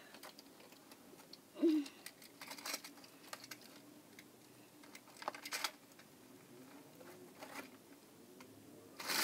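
Faint clicks and light plastic taps of small die-cast toy cars being handled and set in place at the top of a plastic toy ramp. A sudden loud rush of noise starts right at the end.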